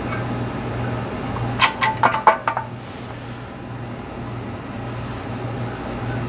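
A quick run of about half a dozen small metal clinks, about two seconds in, as engine valvetrain parts (lifters and holding magnets) are handled and set into the cylinder head, over a steady low hum.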